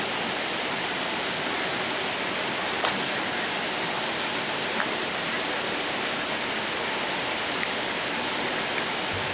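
Steady rushing-water noise, with a few faint clicks along the way.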